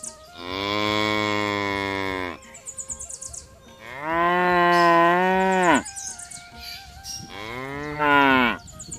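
A cow mooing three times. Each call lasts one to two seconds and drops in pitch as it ends.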